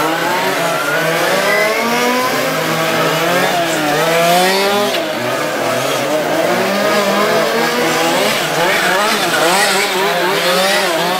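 Several 1:5-scale RC racing cars running laps, their small two-stroke petrol engines revving up and down. Their overlapping engine notes rise and fall continually as the cars brake and accelerate through the corners.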